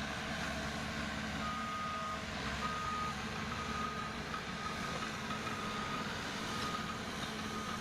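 Caterpillar D5K crawler bulldozer's diesel engine running steadily, with its reverse alarm beeping from about a second and a half in: the dozer is backing up.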